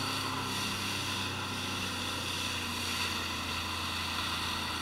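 Sea-Doo personal watercraft running steadily under way at cruising speed, a constant engine drone.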